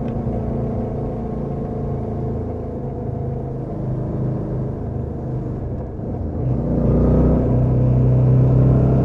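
Suzuki V-Strom 650 XT's V-twin engine running through its stock exhaust, steady at first, then getting louder about two-thirds of the way through as it opens up.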